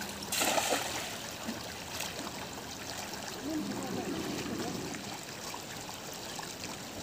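Shallow river water running steadily over stones, with a brief splash about half a second in as a cast net lands on the water.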